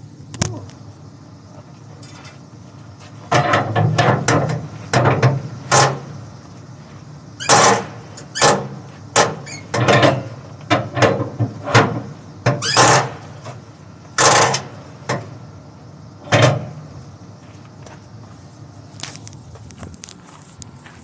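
Flatbed trailer strap winch being cranked tight with a winch bar: a run of about twenty sharp metallic clicks and clanks at an uneven pace, starting about three seconds in and stopping about sixteen seconds in, as the cargo strap is drawn tight.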